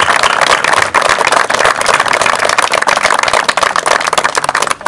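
Crowd applauding, a steady dense clapping that dies away near the end.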